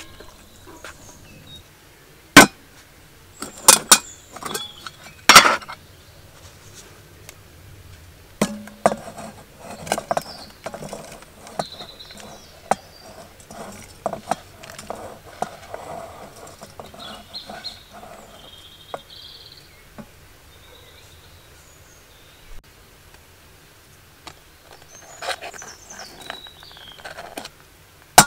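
Metal camp cookware being handled: a cookpot lifted off its S-hook, with a few sharp clinks and clanks early on, then softer scattered clicks and rustles as chopped broccoli is tipped from a wooden plate into the pot, and a few small clicks near the end as butter goes in on a knife.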